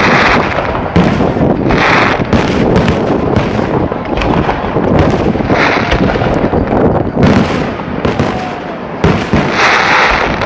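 Fireworks display going off continuously: a dense run of bangs and booms from shells bursting, with stretches of crackle about two, six and ten seconds in.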